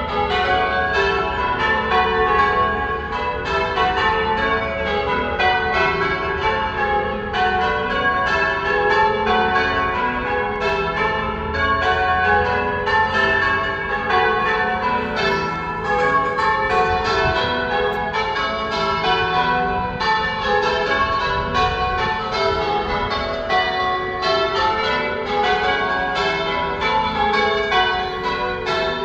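Church tower bells being change-rung: the bells strike one after another in a steady, unbroken succession, their ringing tones overlapping.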